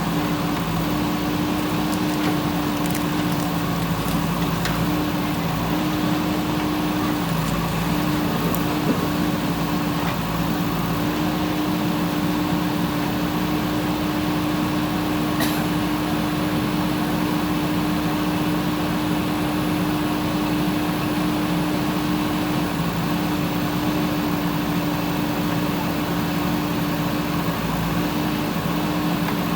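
Diesel engine of a JCB 3DX backhoe loader running at a steady speed, a constant low hum that does not rise or fall.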